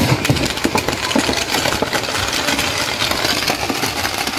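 Firecrackers packed into a burning Ravana effigy crackling and popping in a dense, rapid, continuous rattle, over the noise of a large crowd.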